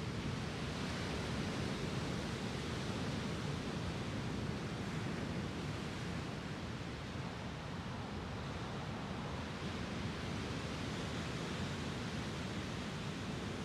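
Small Lake Superior waves breaking and washing up a sandy beach: a steady, even wash of surf.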